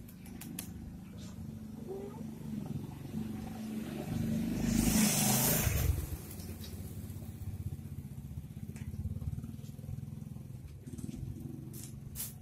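A motor vehicle's engine rumbling steadily, swelling to its loudest about five seconds in and then fading back, as a vehicle passes close by.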